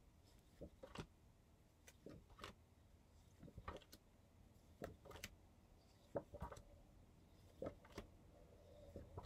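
Faint, irregular clicks and light rustles of paper flashcards being handled and swapped, over a low steady room hum.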